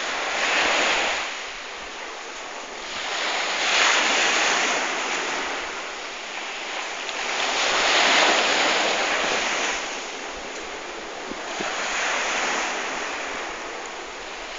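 Waves breaking on a shore, the surf swelling and fading about every four seconds.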